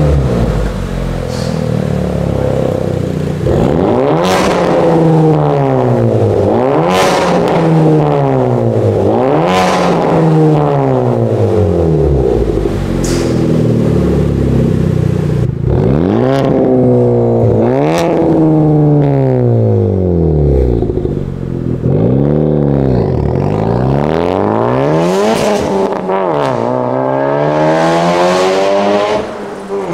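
Honda FK8 Civic Type R's turbocharged 2.0-litre four-cylinder free-revved about nine times through a Fi Exhaust valvetronic catback with catless downpipes. Each rev climbs quickly and falls back toward idle.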